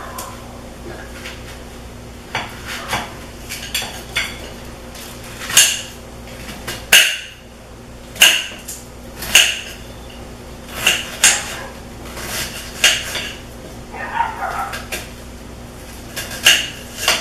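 Knife striking a plate as onion is cut on it: sharp clinks at irregular intervals, roughly one a second, over a steady low hum.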